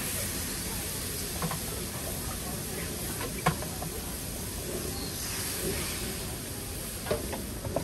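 Batter sizzling and hissing on a hot flat iron griddle as it is poured out from a steel pitcher, with a few light clicks.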